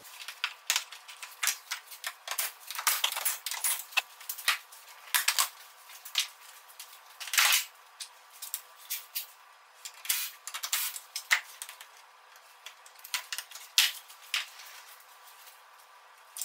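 Sharp metallic clicks and clinks of hand tools working on the engine, as the upper timing-chain cover of the 1.8 TFSI is being taken off. They come irregularly, in quick clusters with short pauses between.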